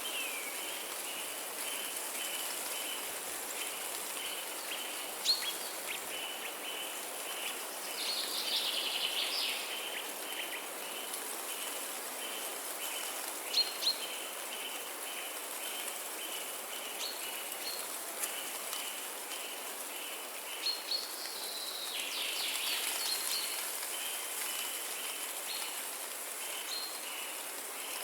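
Forest ambience: birds giving short chirps and calls, busiest about a third of the way in and again past the middle, over a steady, evenly pulsing insect chirr and a constant hiss.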